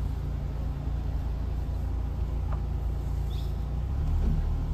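Steady low drone of a car driving along a road, heard from inside the car, with a brief faint high chirp about three and a half seconds in.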